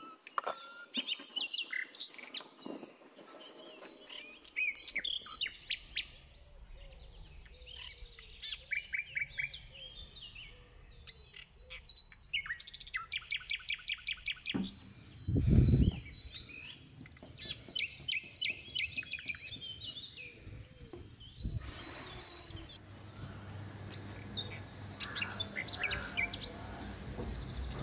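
Small birds chirping and twittering in quick repeated trills. About halfway through, a loud low rumble of about a second from wind or handling on the microphone is the loudest sound, and a steady low hum sets in over the last few seconds.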